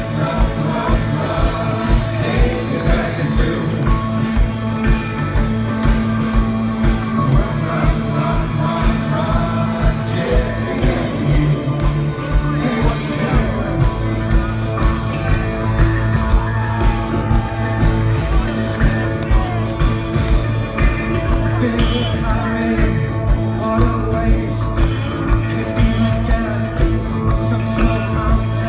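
Live rock band playing loudly, with a steady, driving drum beat under sustained bass and keyboard tones and a singing voice, heard from within the audience.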